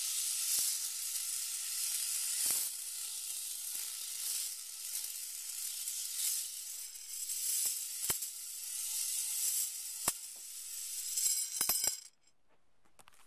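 Plastic rings of a spinner toy whirring as they spin along a metal rod: a steady high hiss with a few sharp clicks as the rings knock. It cuts off suddenly near the end.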